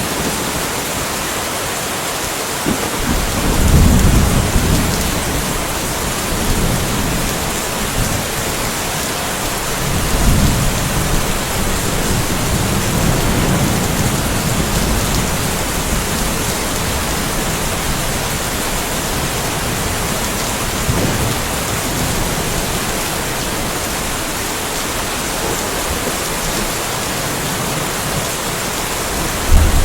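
Steady rain with rolling thunder: a low rumble swells about three seconds in, another starts around ten seconds and rolls on for several seconds, and a fresh one begins right at the end.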